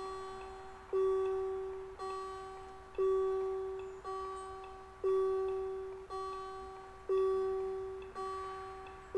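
Railway level-crossing warning bell ringing: a pitched ding about once a second, alternate strikes louder, each ringing on and fading into the next. It starts suddenly, as the crossing's warning is set off for an approaching train.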